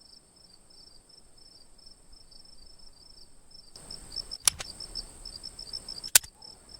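Insects chirping in a fast, even pulse over a steady high-pitched trill. Two sharp clicks come in the second half, the second louder.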